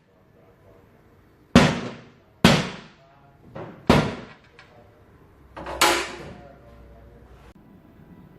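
Four sharp bangs about a second apart, each dying away quickly with a short ring.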